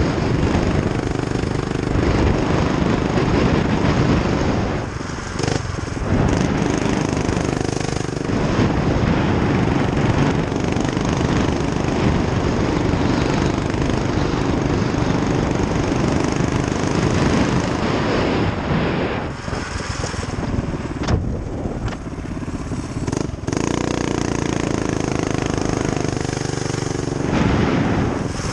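A mini bike's small engine runs hard at road speed under a heavy rush of wind noise. The engine note drops off briefly about five seconds in, and again for a few seconds around twenty seconds in, before picking back up.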